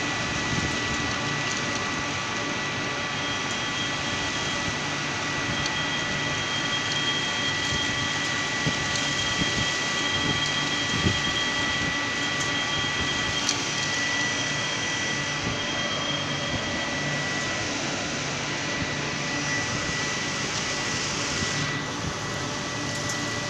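Industrial wet-and-dry vacuum cleaner running steadily as it sucks up oil: a continuous rush of air with a steady high motor whine. The airy hiss thins slightly near the end.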